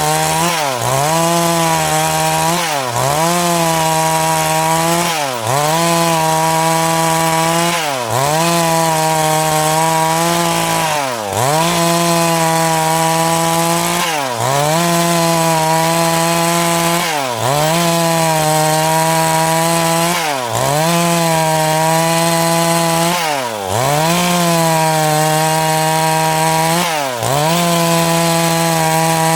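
Two-stroke chainsaw cutting through wood at high revs. Its engine note dips sharply and comes straight back up about every three seconds as the revs fall and pick up again.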